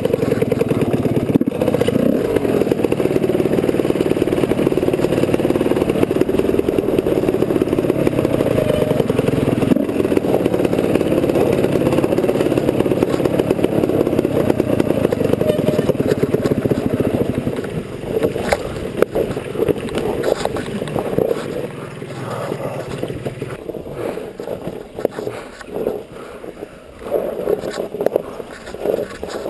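Two-stroke dirt bike engine running steadily under throttle while the bike rides over a rocky trail. About eighteen seconds in the engine sound gets quieter and choppier, with uneven spikes and rattles.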